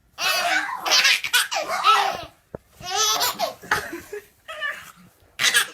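A person laughing in a string of high-pitched bursts, about half a dozen, with short pauses between them.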